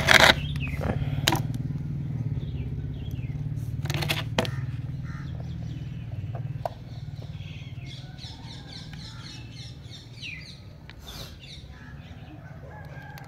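A plastic-bagged toy cricket set being handled, with a few sharp clicks and crinkles of the packaging in the first few seconds, over a steady low hum that cuts off about six and a half seconds in. A bird chirps rapidly and repeatedly in the background after that.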